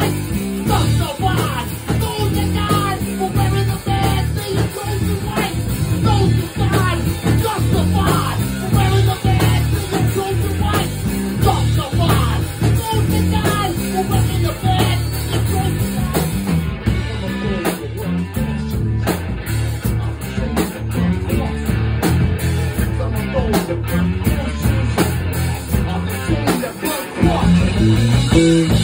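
Live rock jam with an electric guitar played through a Marshall amp, a drum kit and a voice singing. The singing is heard mostly over the first half or so.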